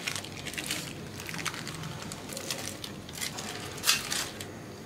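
Baking paper (butter paper) crinkling and rustling as it is peeled off the underside of a baked brownie: a string of short crackly rustles, a few louder ones about three and four seconds in.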